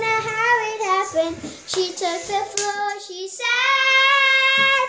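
A young girl singing unaccompanied, her voice sliding between notes, then holding one long steady note near the end.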